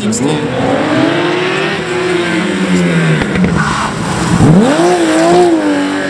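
Rally car engines. One car's engine note sinks slowly as it drives away. About four seconds in, a Porsche 911 rally car's flat-six revs up sharply as it accelerates in, its pitch climbing and then wavering.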